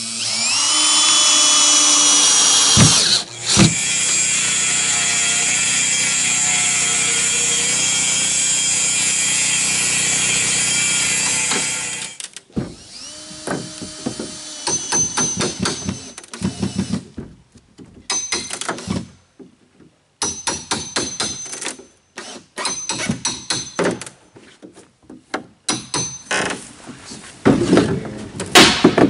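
Cordless drill running at a steady speed for about twelve seconds, spinning up at the start with a short break a few seconds in, driving screws into a plywood floor. After it stops come hand tools working old plywood: a string of knocks and clanks with a few short high squeaks, the pry bar and hammer prying the panels apart, louder near the end.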